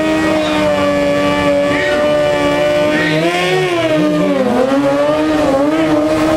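Two sport motorcycle engines held at high revs side by side. About halfway through the pitch dips and climbs again, then rises steadily as the bikes launch and pull away in wheelies.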